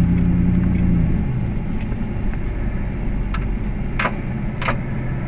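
Inside the cab of a 2000 GMC Sierra 1500 pickup, the engine runs with a steady hum that eases off after about a second, leaving a low road rumble. In the second half come a few short, evenly spaced ticks.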